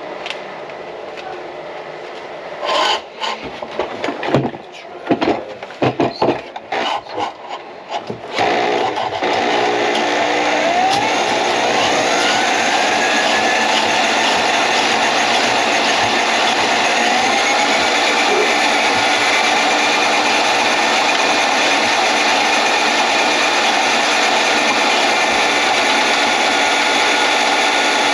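Knocks and clatters of equipment being set up, then a power drain-cleaning machine starts about nine seconds in and runs steadily, working on a kitchen drain line clogged with grease.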